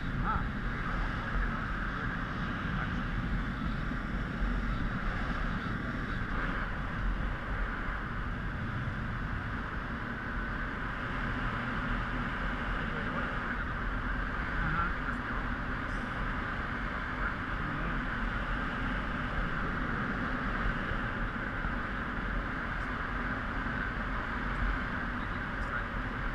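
Steady wind rush on a helmet-mounted GoPro in paraglider flight, an even noise with a constant low rumble and no breaks.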